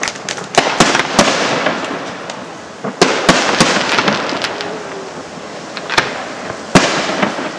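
Aerial firework shells bursting in a string of sharp bangs, the loudest about three seconds in and near the end, with crackling between the reports.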